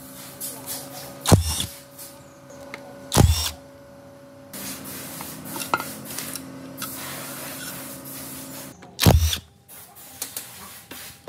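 Power drill driving a socket extension, run in three short bursts to spin bolts out of a cast-iron gearbox cover: about a second in, about three seconds in, and again near the end. A steady low hum runs underneath.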